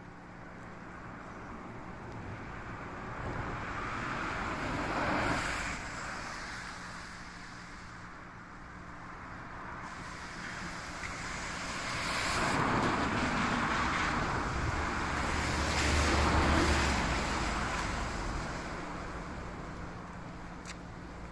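Two road vehicles passing on a rain-wet road: tyre hiss rises and fades about five seconds in, then a longer, louder pass follows later with a low engine rumble near its peak.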